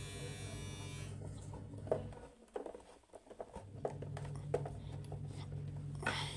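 Powered screwdriver running as it drives the screws holding a woofer into a subwoofer cabinet. Its motor stops a little over two seconds in and starts again a couple of seconds later, with light clicks and knocks of the tool against the screws and cabinet.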